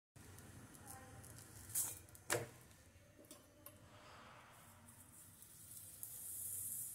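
Mostly quiet, with two sharp clicks about two seconds in, then a faint sizzle building near the end as oil is spooned onto a spinach paratha on a hot tawa.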